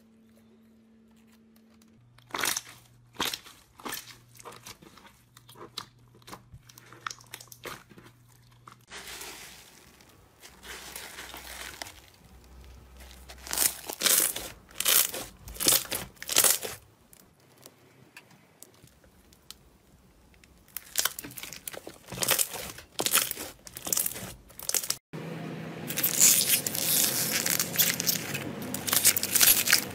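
Slime being squeezed and poked by hand, giving sticky clicks and wet pops in quick runs. About 25 seconds in it turns into a dense, continuous crunchy crackling as slime packed with white foam pieces is squished.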